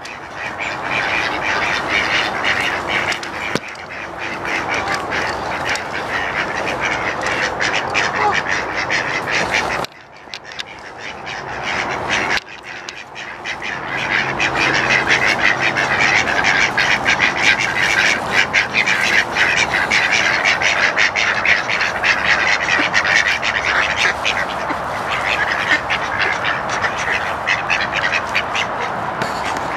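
A flock of mallard-type ducks quacking continuously in a dense, overlapping chatter as they crowd in to be fed. The calling drops away briefly about ten seconds in, then picks up again.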